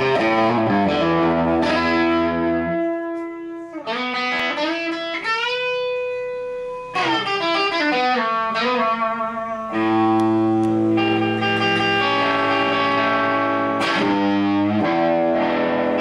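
Electric guitar played through a custom-built 20-watt tube amp head in the Marshall JTM45 style: ringing chords, with notes bent upward and held about a third of the way in, then chords again.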